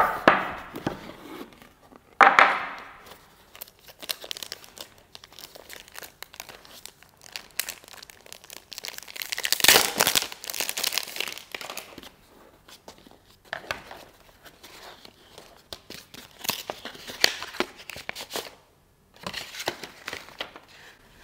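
Plastic film and paper packaging crinkling and rustling as a mini laptop is unboxed by hand. The rustles come in irregular bursts, the loudest at the very start, just after two seconds and about halfway through.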